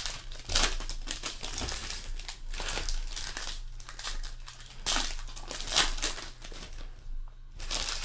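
Foil trading-card pack wrappers crinkling and rustling as hands open and handle the packs, in uneven rustles with a short lull near the end.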